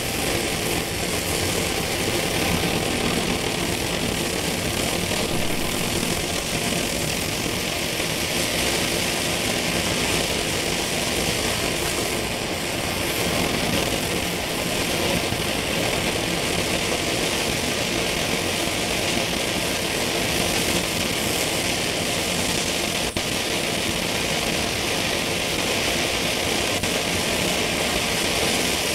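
Homemade coil-less alcohol stove with a single small jet, burning hard: the jet of fuel vapour and flame makes a steady, loud rushing hiss like a small jet burner.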